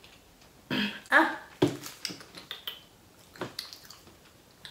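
A short throaty vocal noise about a second in, then scattered small wet clicks and smacks from eating close to the microphone.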